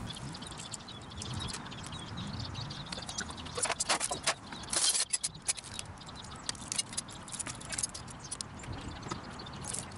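Rapid, irregular clicking and clattering of plastic and metal parts as a flatscreen TV's back casing is unscrewed and pulled apart, with a cluster of louder clacks around the middle.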